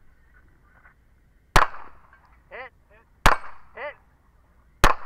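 Three single handgun shots about a second and a half apart, each a sharp crack with a short echo. A brief falling whine follows each of the first two shots.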